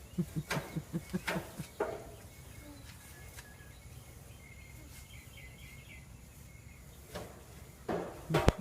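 Birds chirping faintly in the background, between short rhythmic bursts of a person's stifled giggling in the first two seconds and again near the end, with a loud bump just before the end.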